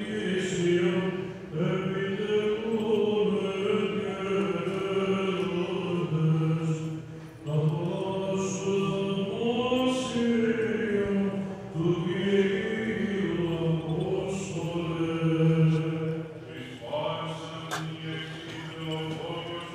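Male voices singing Orthodox Byzantine chant in long, slow, melismatic phrases, the liturgical chant heard while an Orthodox bishop is vested in the altar.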